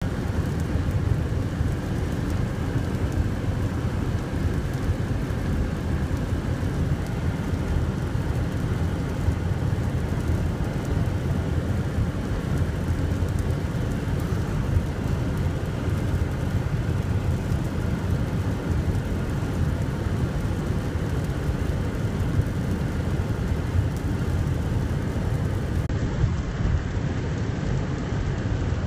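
Wind and rain of a tornadic storm passing over, heard from inside a car: a steady low rumble with a hiss over it that never lets up.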